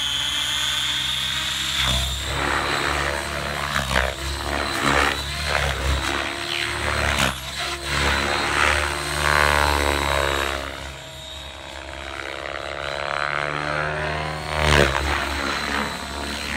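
Radio-controlled helicopter lifting off and flying around, its rotor and motor running at flying speed with a steady high whine. The rotor sound swells and fades as it moves, quieter about two-thirds of the way in and loudest as it comes close again near the end.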